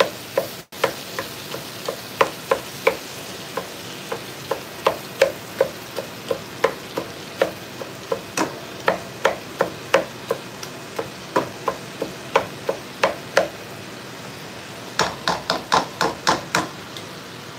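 Meat chopper knocking against the bottom of a frying pan as ground beef and sliced sausage are mashed and broken up, about two knocks a second, over a steady sizzle of frying meat. A quicker run of knocks comes near the end.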